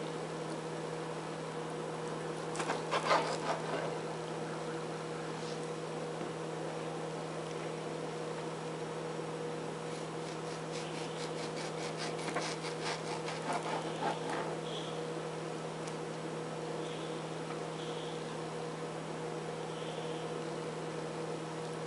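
Chef's knife cutting raw chicken on a plastic cutting board: a short cluster of blade taps about three seconds in and a longer run of quick taps from about ten to fourteen seconds, over a steady electrical hum.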